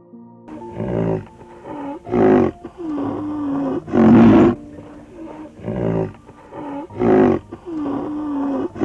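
Low, pitched calls of a large animal: a run of several calls, one drawn out and the loudest short and blaring. The same run then repeats once, about four seconds later.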